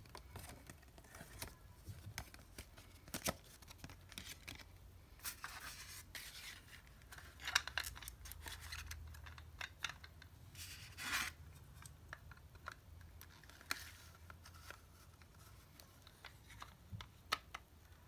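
A folded paper cassette insert rustling and a clear plastic cassette case being handled, with scattered sharp clicks and scrapes. The loudest click comes about halfway through, and a longer rustle follows a few seconds later.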